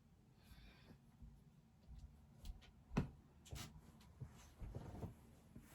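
Faint handling noises: a few light clicks and taps, the sharpest about three seconds in.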